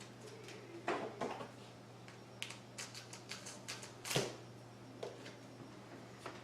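Small clicks and taps of hands working small parts, fitting button-cell batteries into a digital caliper's battery compartment: a couple of clicks about a second in, a run of quick light ticks, then a louder knock about four seconds in.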